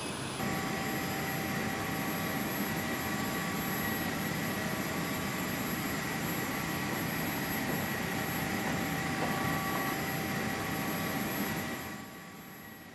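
Steady rushing noise and high whine of a Lockheed C-5A Galaxy's running machinery heard inside its cargo hold, with several steady high tones over it. It fades away near the end.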